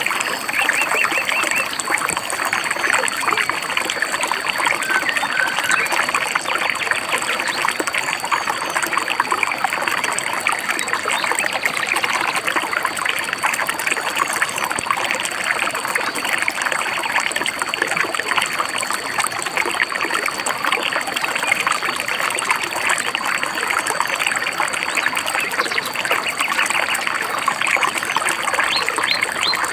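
Stream babbling and trickling steadily over stones, with a few faint bird chirps.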